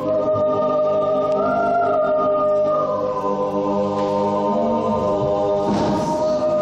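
Mixed choir singing a Christmas carol, holding sustained chords that change about a second and a half in and again near three seconds, with a short hiss near the end.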